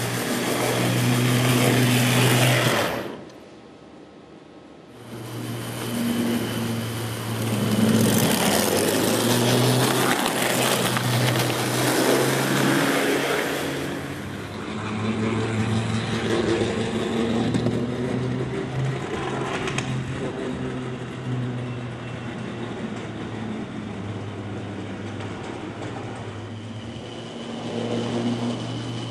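O-scale model trams running on the layout: the small electric motors whir with a steady low hum over the running noise. The sound drops away sharply for about two seconds, starting about three seconds in, then comes back.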